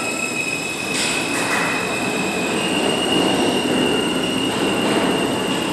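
New York City subway train running through the station, its wheels giving a steady high-pitched squeal on the rails over the rumble of running. The squeal steps up slightly in pitch partway through, and there are two sharp clacks about a second in.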